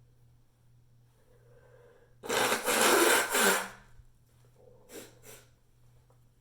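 A person's loud sneeze-type nasal blast: one noisy burst about a second and a half long, with a faint intake just before it, echoing in a small bathroom. Two short, quieter bursts of breath follow about a second later.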